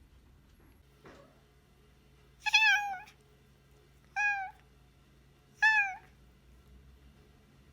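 A domestic cat meowing three times, each a short call that falls slightly in pitch, spaced about a second and a half apart.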